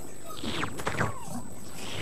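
Cartoon sound effects of small bug creatures chirping and squeaking: several quick squeaks that each fall in pitch, one after another.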